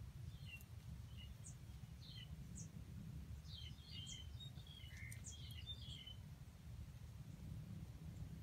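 Faint, scattered chirps of small birds, busiest around the middle and dying out a couple of seconds before the end, over a low steady rumble.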